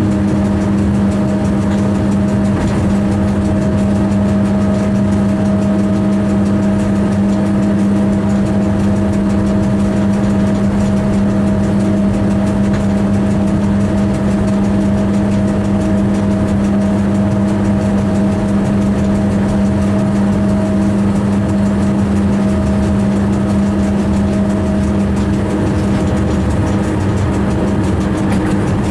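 A train running steadily, heard from the driver's cab: a constant hum over even running noise, with no change in pace.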